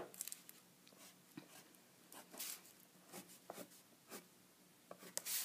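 Black oil pastel stick drawing on paper: one sharp tap at the start, then faint, scattered short strokes as whisker lines are drawn.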